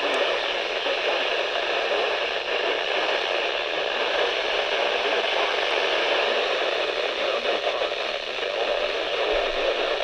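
Steady static hiss from a weakly received radio signal.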